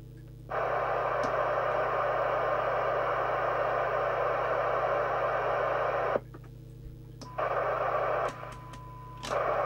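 Midland 77-095 FM CB radio's speaker with its squelch opening: receiver hiss with a steady test tone from the signal generator in it. The hiss comes in about half a second in and cuts off after about six seconds, then opens briefly twice more near the end. With the squelch on minimum it opens on a very weak signal of about 0.3 microvolts.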